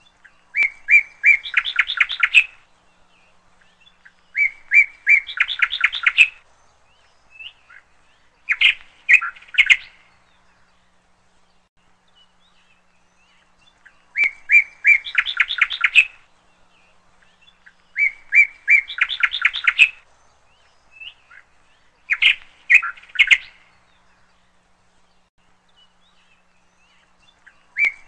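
A bird singing: short phrases of a few clear notes running into a fast trill, repeated about six times with quiet pauses between.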